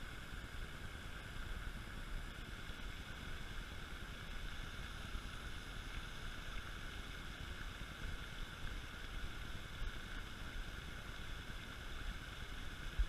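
Steady outdoor background ambience: a low rumble under a constant higher-pitched hiss, with no distinct events.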